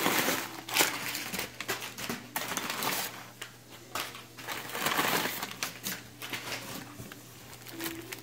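Brown kraft packing paper and plastic wrapping crinkling and rustling as a hand rummages through a cardboard box, in irregular bursts of crackle.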